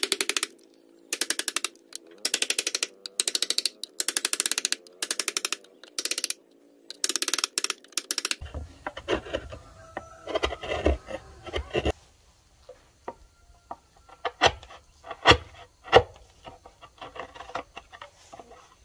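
A steel hand chisel cutting a notch into a wooden board. First come bursts of rapid clicking about once a second. About halfway through the sound changes to irregular scraping and cracking as the chisel pares out the wood, with a few sharp snaps near the end.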